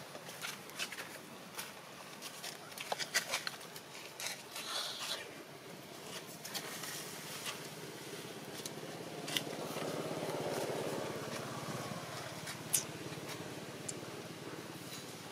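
Dry leaf litter and twigs rustling and crackling under macaques moving about, in irregular sharp clicks that are thickest in the first half. A low, steady hum swells in the second half.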